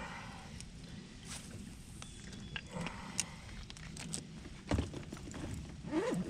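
Knocks and clicks of gear being handled in a fishing boat over a low steady hum, with one louder thump a little under five seconds in.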